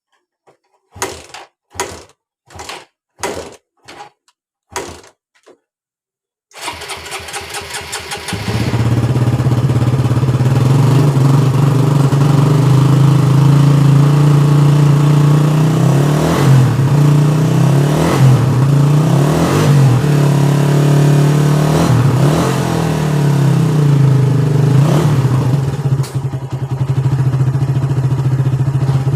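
Suzuki Satria FU 150 cc single-cylinder four-stroke motorcycle engine with its stock exhaust. It cranks in several short bursts, catches about six and a half seconds in, and then runs loud and steady with a deep exhaust note and a few short revs in the middle.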